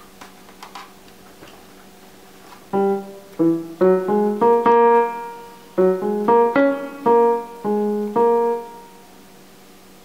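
Yamaha portable electronic keyboard playing a short tune of about a dozen separate notes in two phrases, starting about three seconds in, after a few faint clicks. The keyboard had failed to power on and is now working again.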